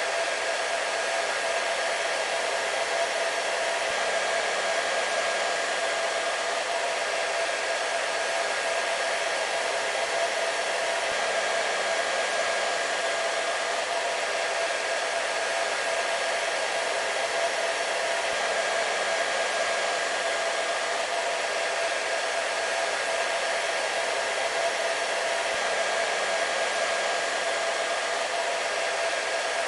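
Hair dryer running continuously: a steady, unchanging rush of air with a constant motor whine in it.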